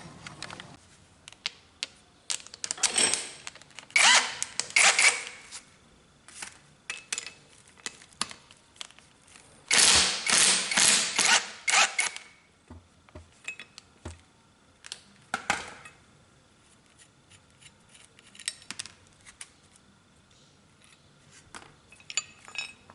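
Hand tools working on metal during engine-mount removal: scattered clicks and knocks, with three dense bursts of rapid clicking and rattling, the loudest about ten seconds in.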